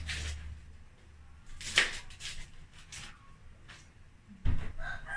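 Knife cutting cabbage on a cutting board: a few sharp knocks, the loudest about two seconds in, and a dull thump near the end. A rooster begins crowing just at the end.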